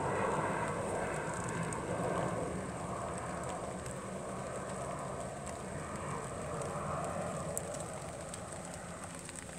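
Steady outdoor rushing noise with a few faint scattered ticks, easing off slightly toward the end.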